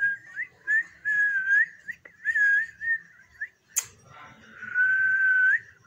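A person whistling: a string of short wavering whistled notes, a sharp click just before four seconds in, then one longer held whistle with breath hiss.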